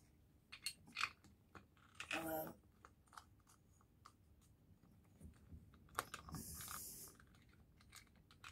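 Faint clicks and light metal knocks as a clutch pressure plate is offered up by hand and seated over the clutch plates of a Triumph T140 Bonneville. A short scraping rustle comes about six seconds in.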